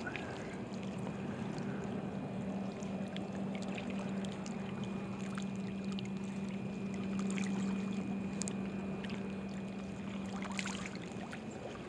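Small waves lapping at the bank of a wind-rippled lake, under a steady low hum.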